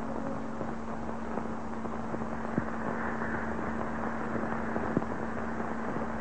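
Old optical film soundtrack with no dialogue or music: a steady hiss with a constant low hum, broken by a few sharp crackling pops.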